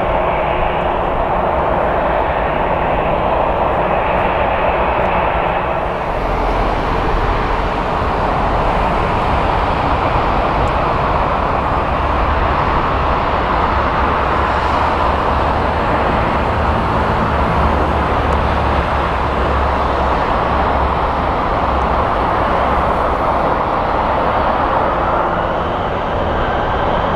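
Jet airliner engines: a loud, steady rushing rumble that turns deeper about six seconds in. Near the end a rising whine joins it.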